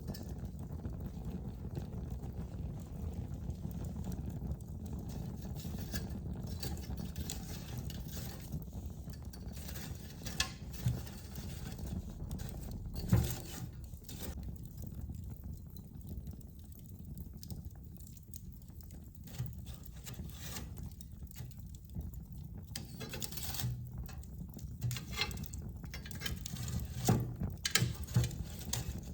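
Fireplace fire burning with a steady low rumble and scattered sharp crackles and pops, the loudest about halfway through and a cluster of them near the end.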